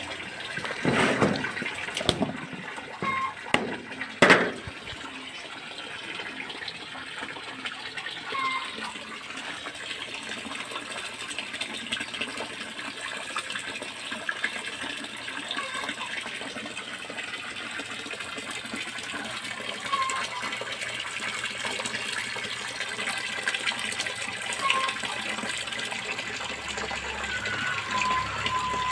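Water splashing steadily into a fish tank, churning the surface. A few sharp knocks come in the first few seconds, and short faint chirps sound now and then over the splashing.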